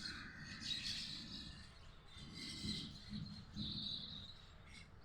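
A flock of birds chirping and twittering, with several overlapping high chirp clusters.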